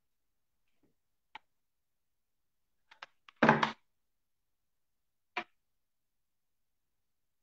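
Tabletop handling noises from working craft foam by hand: a few light clicks and taps, and one louder thump about halfway through.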